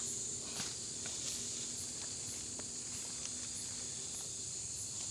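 Steady high-pitched chirring of night insects such as crickets, with a few faint small clicks and rustles of hands handling a net.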